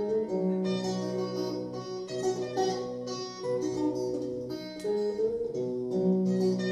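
Music played on plucked string instruments like guitar, several notes ringing and overlapping in a slow-moving line.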